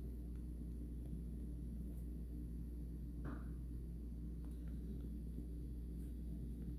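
Steady low background hum, with a few faint ticks and a brief soft rustle about three seconds in.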